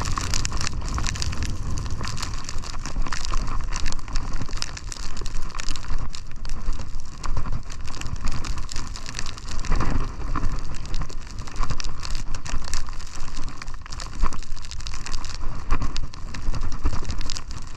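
Snowboard base and edges sliding and scraping over snow at speed, a continuous crackly rushing noise, with wind rumbling on the microphone.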